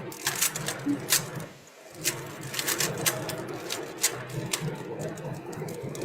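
3x3 Rubik's cubes being turned fast while speedsolving: a rapid, irregular clatter of plastic clicks over a steady low hum, with a brief lull about one and a half seconds in.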